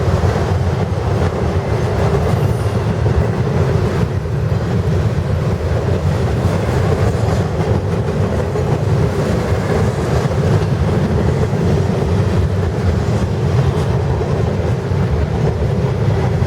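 CSX intermodal freight train passing close by at speed: a loud, steady rumble of steel wheels on the rails, with faint clicks from the rail joints.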